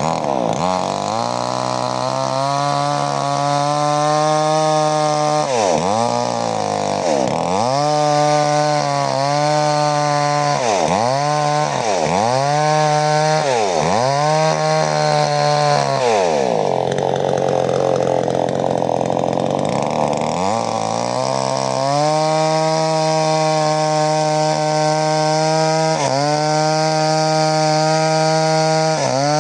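Mollar 58 cc two-stroke chainsaw cutting wood at high revs, its engine pitch dropping and recovering again and again as the chain bites into the cut, with a longer sag in the middle before it runs high and steady again.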